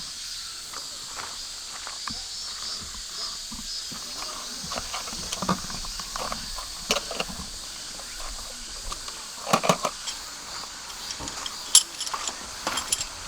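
A steady, high-pitched insect chorus, with scattered clicks and knocks from handling things. The knocks cluster about two-thirds of the way in, and there are a few sharp clicks near the end.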